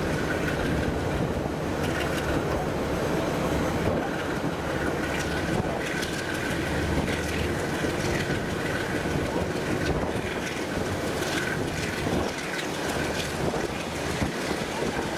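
TranzAlpine passenger train running, heard from aboard: a steady rumble and rush of wheels on rails, with scattered clicks and a faint high steady whine.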